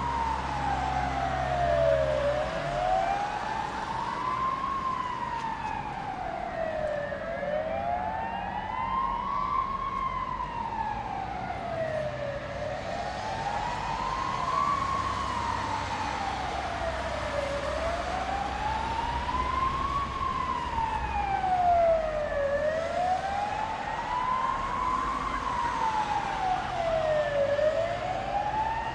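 Emergency vehicle siren on a slow wail, its pitch rising and falling in a regular cycle of about five seconds, with a low rumble underneath for the first couple of seconds.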